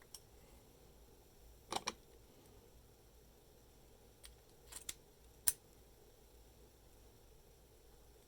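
A key working a US Postal Service registered padlock: a few sharp metallic clicks of the key and plug turning, one near the start, a quick pair just under two seconds in, and more around five seconds in, the loudest at about five and a half seconds.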